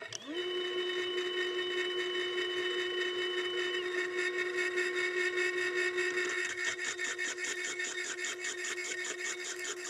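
Homemade small CNC lathe's spindle starting up, its whine rising quickly and then running steady, with a higher whine that stops about four seconds in. From about six seconds in, the carbide turning insert bites into the end of a steel bar, adding a fast, even cutting rasp.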